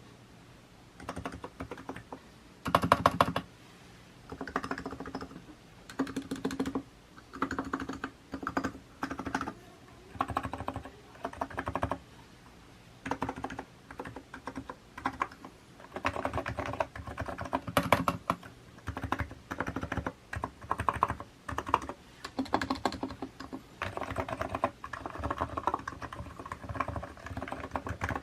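Typing on a Hansung GK868B electrocapacitive (non-contact) keyboard with 50 g switches and SA-profile keycaps: short bursts of keystrokes separated by brief pauses, turning into steadier, more continuous typing about halfway through.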